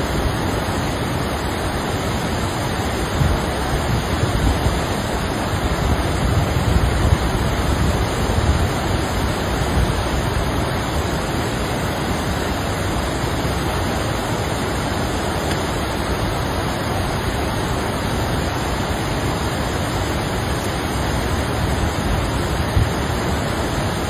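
Steady rushing of a shallow river running over stones, with wind buffeting the microphone in low gusts.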